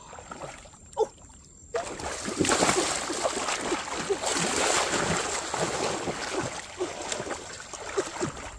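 Hands splashing and churning hard in shallow, muddy water while grabbing for a fish. The splashing starts about two seconds in and goes on as one long, busy burst full of small plops and drips. Before it there is a quieter stretch with a single thump about a second in.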